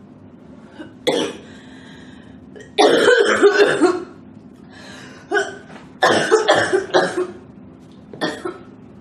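A girl coughing in fits: one short cough about a second in, a long, loud run of coughs around three seconds in, another cluster about six seconds in, and a single cough near the end.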